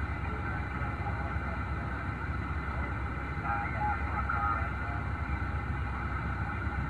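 Steady static hiss from a CB radio receiver on single sideband on the 11-metre band, with a faint, garbled voice from a distant station coming through briefly a few seconds in.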